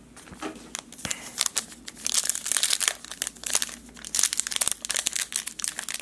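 Foil Panini Playoff football card pack crinkling and tearing as it is pulled open by hand: a dense run of crackling. It follows a light knock about a second in.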